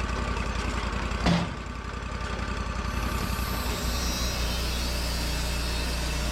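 Wood-Mizer LT40 sawmill's engine running steadily, with one sharp clunk about a second in. About three seconds in a hissing noise joins it and the engine note shifts.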